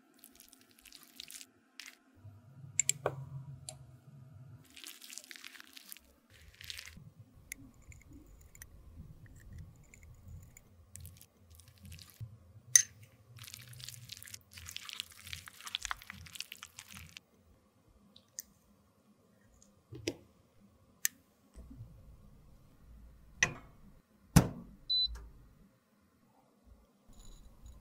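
A metal spatula scraping and squishing soft, waxy lipstick out of its tube and into a small glass beaker, in soft stretches of scraping with small clicks. Near the end come a few sharp knocks and clicks, the loudest of them about three-quarters of the way through.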